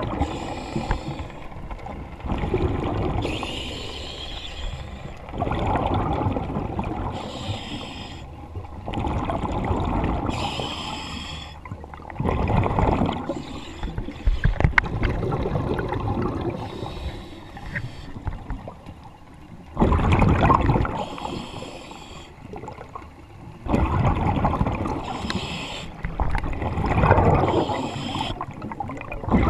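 Diver breathing underwater through a regulator fed by a surface air compressor (hookah rig). Each breath is a hissing inhale, then a rumble of exhaled bubbles, repeating every three to four seconds.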